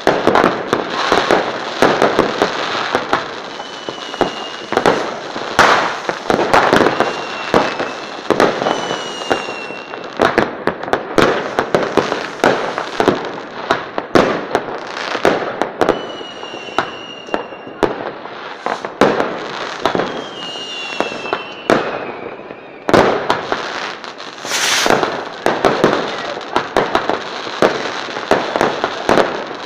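Fireworks display: dense, irregular bangs and crackling from bursting shells, with several short whistles sliding in pitch through the middle and a hissing rush about three quarters of the way through.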